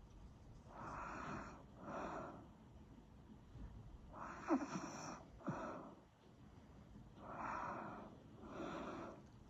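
Snoring: slow, rasping breaths, each an in-breath followed by an out-breath, coming about every three seconds, three times. The middle breath carries a short falling squeak.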